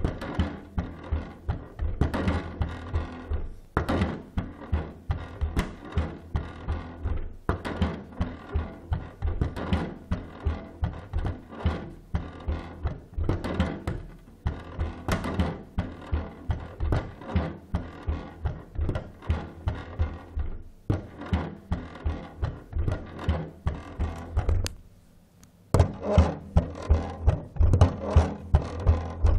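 A cat flap knocking against its frame in a steady rhythm, about two to three knocks a second, stopping briefly a few seconds before the end and then starting again.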